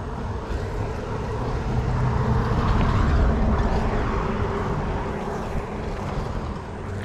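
Engine drone of something passing by, a steady hum that swells to its loudest about three seconds in and then slowly fades.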